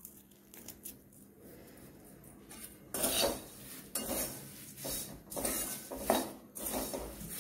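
Steel spoon stirring crisp, dry paper-thin poha chivda in a metal kadai. Faint clicks and rustles for the first few seconds, then from about three seconds in a quick run of spoon scrapes against the pan. The dry, crackly rustle of the flakes shows the chivda is roasted crisp.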